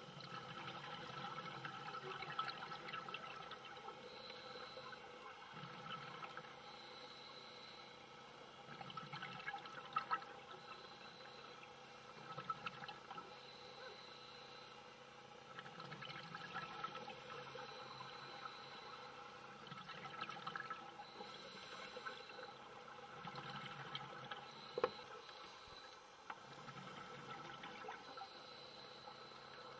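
Underwater sound of scuba divers breathing through their regulators: exhaled bubbles gurgling in waves every few seconds. A few sharp clicks stand out.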